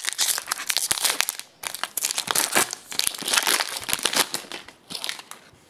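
The foil wrapper of an Upper Deck hockey card pack crinkles and crackles as it is torn open and handled. It comes in bursts, with short lulls about a second and a half in and again near the end.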